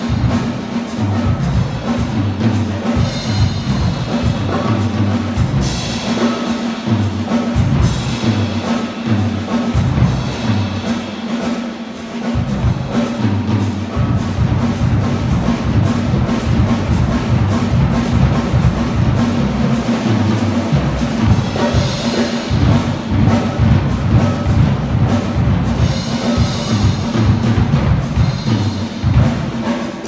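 Live big band playing a jazz piece: saxophones, trumpets and trombones over piano, double bass and a drum kit keeping a steady beat, with loud full-band horn passages coming and going and a brief drop in level about twelve seconds in.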